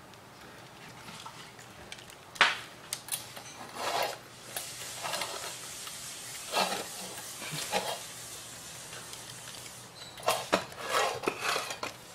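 Miniature pinscher eating dry kibble from a stainless steel bowl: irregular metallic clinks and clatters of kibble against the bowl, the loudest about two and a half seconds in, with a quick cluster of them near the end.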